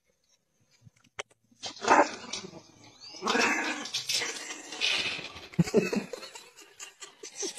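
A small dog barking and growling in repeated bursts, starting about two seconds in.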